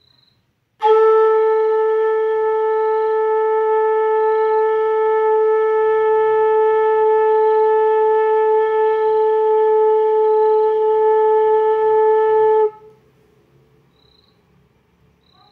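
Bansuri (bamboo flute) holding one long, steady note for about twelve seconds, a long-tone exercise in sargam practice. It starts about a second in and stops abruptly.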